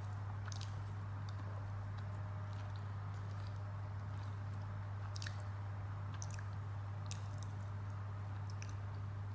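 A person chewing a mouthful of poori and potato curry, with scattered short wet clicks, over a steady low hum.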